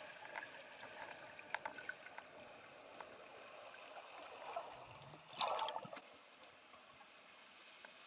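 Underwater ambience: faint scattered clicks and crackles over a steady hiss of water. A short, louder gurgle comes about five and a half seconds in.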